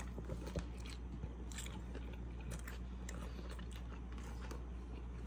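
A person chewing a mouthful of al pastor taco close to the microphone, with scattered small clicks from the mouth and a sharp click right at the start, over a steady low hum.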